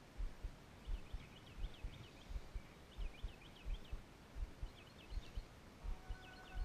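A small bird singing short phrases of quick, high chirps, repeated every second or so, over irregular low thumps. Music fades in near the end.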